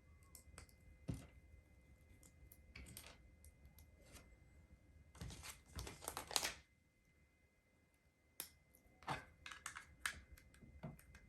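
Small plastic LEGO pieces clicking and clattering as they are handled and pressed together, with a denser run of clattering in the middle.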